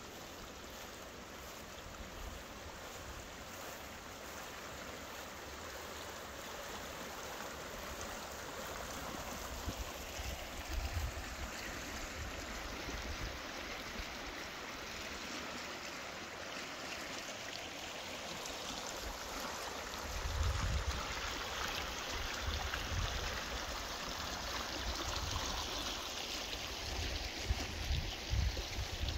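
Fremont River flowing over its bed: a steady rush of water. Low rumbling buffets, typical of wind on the microphone, come and go from about a third of the way in and more often in the second half.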